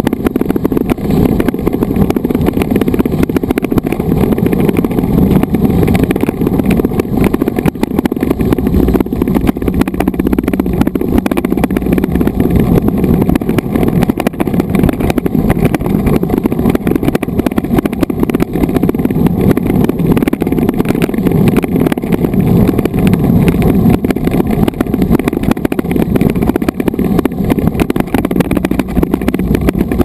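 Mountain bike riding over a gravel dirt road, heard through a bike-mounted action camera: a loud, steady, low rumble of tyre and frame noise and wind on the microphone.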